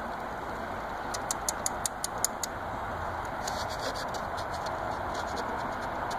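A fingernail clicking against a mesh window screen: a quick run of light clicks about a second in, then a few fainter ones, over a steady background hiss.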